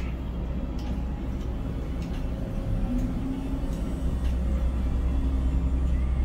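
Steady low rumble of a container crane's machinery heard inside the operator's cab as the crane moves out over the ship, with a faint motor whine that rises briefly about three seconds in.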